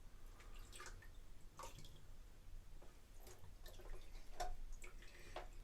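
Water dripping and splashing lightly, in irregular small splashes, as a kitten is bathed.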